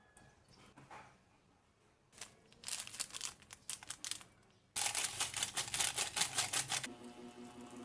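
Packaging being crinkled and rustled by hand in quick irregular bursts, loudest from about five to seven seconds in. Soft piano music comes in near the end.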